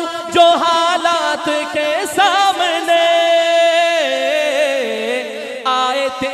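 A man singing a naat into a microphone, stretching a line into long melismatic notes with quick ornamented turns. About three seconds in he holds one note steady for about a second, then drops lower.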